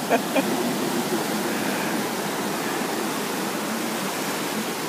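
Breaking surf rushing in through the shallows: a steady hiss of white water, after two brief knocks at the start.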